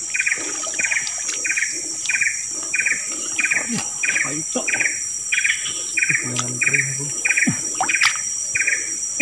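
Insects chirping in an even rhythm, about two short chirps a second, over a steady high-pitched insect drone.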